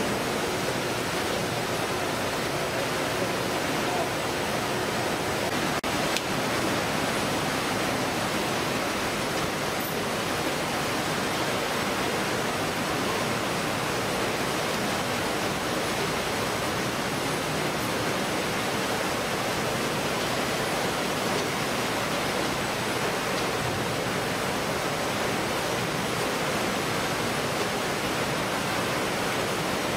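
Steady, even din of a fish-processing line's machinery and running water, with a brief break about six seconds in.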